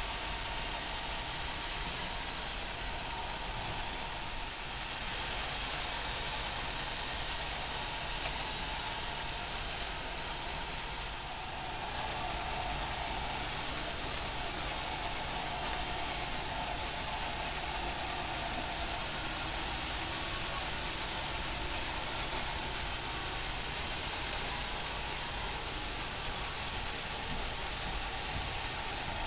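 Roomba robot vacuum running: a steady hiss of its motor and brushes, with a faint constant tone underneath.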